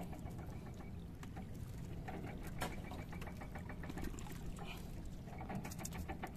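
Faint water lapping and trickling against the hull of a small fishing boat, over a low steady rumble.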